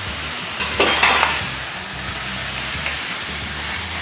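Minced beef and basil stir-fry sizzling in a hot wok while a wooden spatula stirs and scrapes it, with a louder scrape of the spatula across the pan about a second in.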